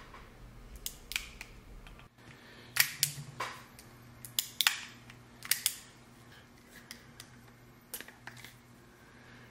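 Smith & Wesson 629 stainless .44 Magnum revolver being handled, a string of short, sharp metallic clicks, some in quick pairs, as the cylinder is released and swung open.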